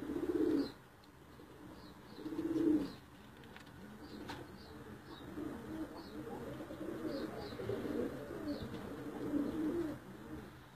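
Iraqi-cross-Budapest hybrid tippler pigeons cooing in their loft. Two loud coos come near the start, then several birds coo over one another through the second half. Faint short high chirps sound above the cooing.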